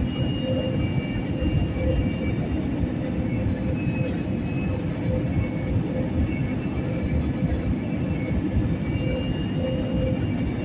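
Airliner cabin noise: a steady rumble of engines and airflow, with a hum near 500 Hz that swells and fades and faint higher whining tones.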